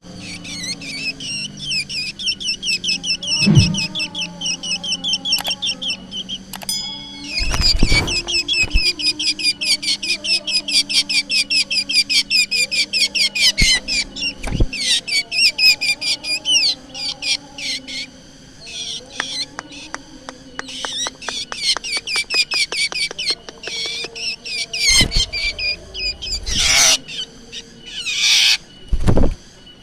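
Black drongo singing a long, rapid string of repeated high chattering notes. Several loud thumps break in, a cluster of them near the end.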